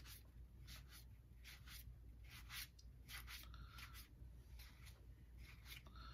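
1990 Fleer baseball cards being slid one by one off a stack in the hands, card rubbing on card in a string of faint, short swishes.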